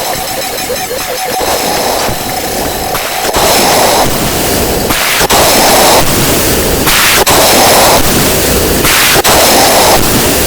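A 'wha wha' sound effect sped up so many times over that it has become a loud, harsh wash of noise. It shifts abruptly in blocks every second or two, with a few brief dropouts.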